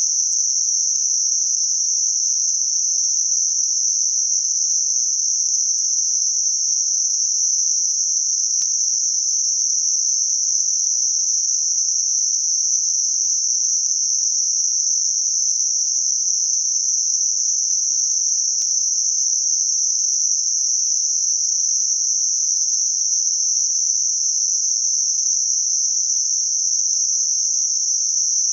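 Synthetic Gaussian narrow-band noise centred on 6 kHz, made for masking high-frequency tinnitus: a steady, high-pitched hiss at an even level.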